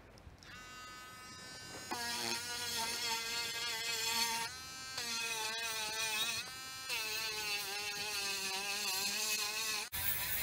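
Dremel rotary tool with a small sanding disc on a mandrel spinning up and running as a high, steady whine while sanding the carved wooden rim of a bowl. The whine breaks and shifts in pitch a couple of times as the disc works the wood.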